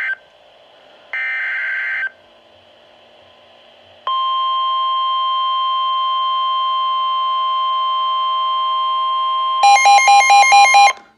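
Emergency Alert System broadcast on NOAA Weather Radio. First the end of one SAME header data burst, then a second one-second burst of buzzy digital data tones. About four seconds in, the steady 1050 Hz warning alarm tone starts and holds for about five and a half seconds, then gives way to about a second of rapid pulsing beeps.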